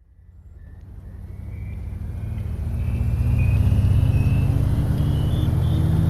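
A motor vehicle's engine running, fading in from silence over the first few seconds, with a thin whine rising steadily in pitch above the low hum.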